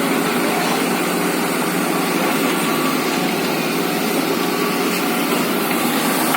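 Excavator's diesel engine running steadily at an even pitch, with no change in speed.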